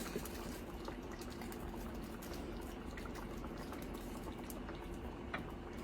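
Hamburger steaks in onion and mushroom gravy simmering in a cast-iron skillet on low heat: soft, steady bubbling with many small pops.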